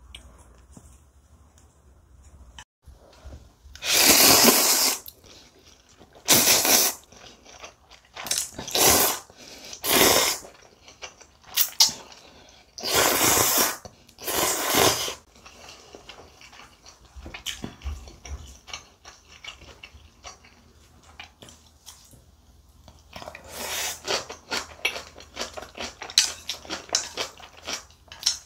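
A woman slurping spicy instant ramen noodles in several loud, drawn-in slurps of about a second each, then chewing with a quick run of small wet clicks over the last few seconds.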